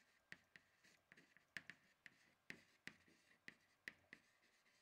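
Chalk writing on a chalkboard: a quiet run of irregular sharp taps and short scratches, a few a second, as words are written. The taps stop a little before the end.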